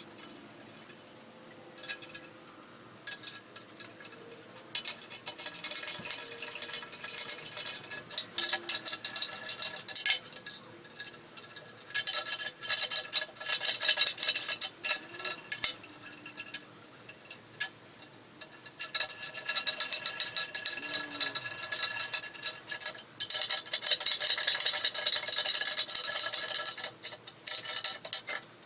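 Rapid metallic clicking and clinking as bolts with washers are threaded and tightened into the tapped holes of a drill press base. The clicking comes in two long runs, about five seconds in and again from about nineteen seconds, with a lull of scattered clicks between them.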